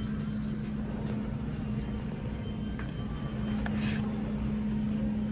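A steady low hum with a rumble beneath it: the room tone of a small shop. About four seconds in, a brief rustle as a cardboard cracker box is lifted off a wire shelf.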